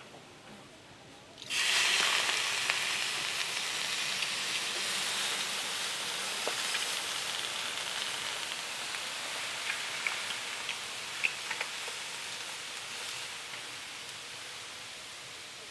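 Löyly: water poured from a ladle onto the hot stones of a wood-fired IKI mesh-cage sauna stove, hissing into steam. The hiss starts suddenly about a second and a half in and slowly dies away, with a few small crackles from the stones later on.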